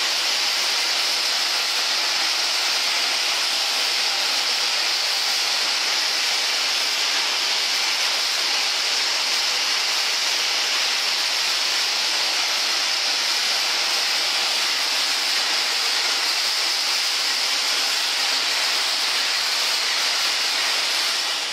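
Fuse-making machine running, its belt-driven spindles and thread bobbins turning: a steady high hiss with no distinct beat.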